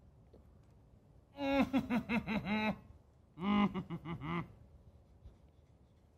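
A man laughing in two bursts of rhythmic ha-ha pulses, the second shorter. It is deliberate laughter at the pain of a hot fermented ghost pepper he has just eaten.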